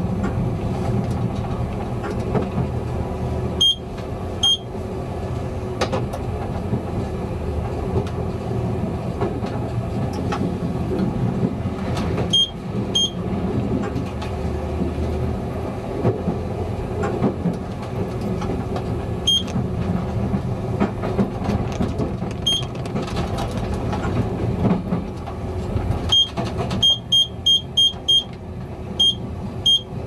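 Czech class 854 diesel railcar heard from the driver's cab: the diesel engine running steadily under the rumble of wheels on rail. Short high electronic beeps from the cab equipment sound every few seconds, singly or in pairs, with a quick run of about six near the end.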